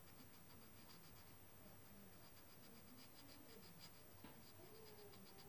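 Faint scratching of a coloured pencil shading on paper in quick, repeated back-and-forth strokes.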